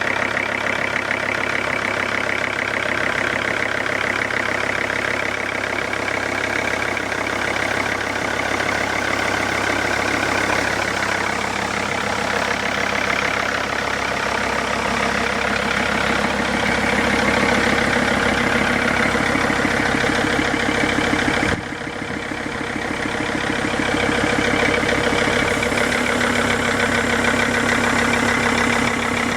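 Mercedes-Benz W211 E-Class engine idling steadily with a fast, regular knock, the knock the owner is recording. The level dips briefly about two-thirds of the way through.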